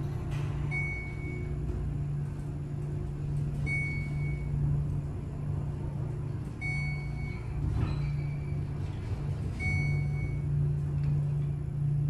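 Schindler elevator car travelling down, a steady low hum of the car in motion, with a short high beep about every three seconds, four in all: the floor-passing tone as the car passes each floor.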